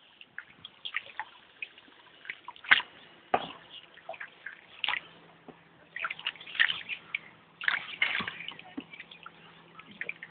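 Floodwater lapping and sloshing close by, with irregular small splashes and drips.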